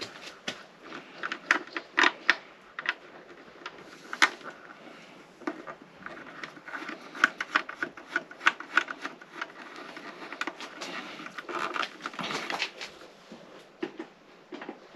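Irregular metallic clicks and taps from hand tools working screws and fittings on a motorcycle headlight mount, several a second with short pauses.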